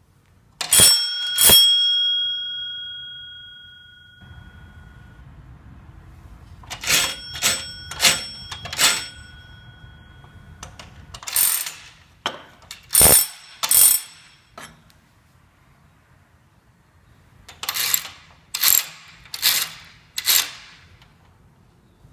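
A doorbell struck twice in quick succession, its bell tone ringing on and fading over about three seconds. About seven seconds in it is rung four times quickly, then comes a scattering of sharp strikes, and a final group of four short strikes with little ring.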